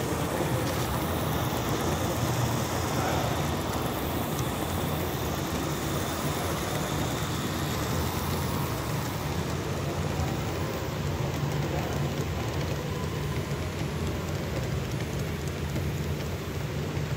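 Live-steam model Shea geared logging locomotive running along the track, with a steady hiss of steam over a constant low rumble.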